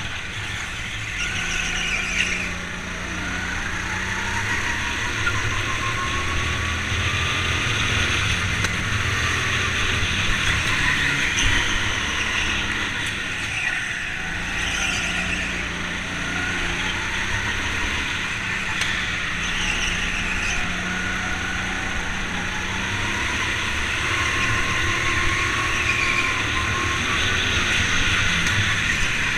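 Onboard sound of a Sodi rental go-kart lapping a track: its motor runs continuously under a low rumble, its pitch sweeping up and down again and again through the corners.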